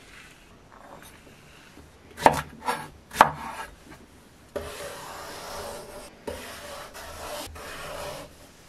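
Vegetable peeler scraping strips of skin off an eggplant on a wooden cutting board, in long strokes in the second half. A few sharp knocks on the board come about two to three seconds in.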